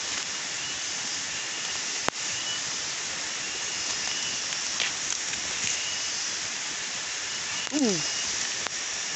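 Steady hiss of tropical forest ambience while people walk through dense undergrowth. A sharp click comes about two seconds in, and a short call slides steeply downward near the end.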